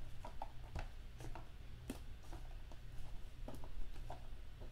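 Hands working a small cardboard card box: scattered small clicks, taps and scrapes of cardboard and card stock as cards wedged tight inside are eased loose, over a steady low hum.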